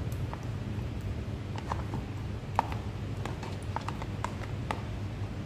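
Irregular light clicks and taps of a plastic container knocking and scraping against a steel mixing bowl as mashed avocado is emptied into cake batter, over a steady low hum.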